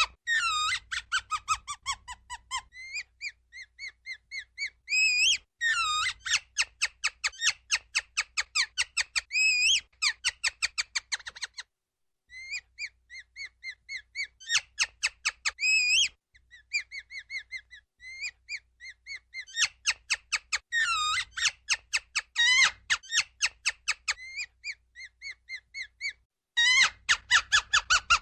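Ground squirrel calling: bouts of rapid, high-pitched, squeaky chirps, several a second, some falling in pitch, with a few short breaks between bouts.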